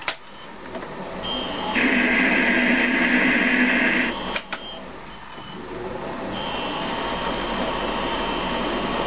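Metal lathe with a four-jaw chuck, single-point cutting an M19 × 2 thread. It starts with a click and spins up, and the tool cuts with a louder grinding noise for about two and a half seconds. About four and a half seconds in, the lathe is switched with a click and the spindle runs up again to a steady run.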